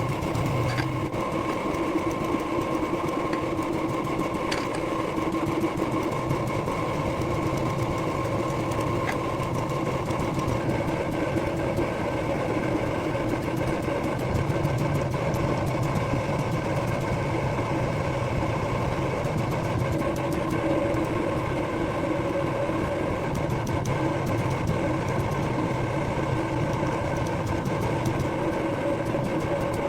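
Electric motor running steadily, with a steady hum and several fixed tones over a hiss. The tone shifts slightly about ten seconds in, and a few faint clicks come through.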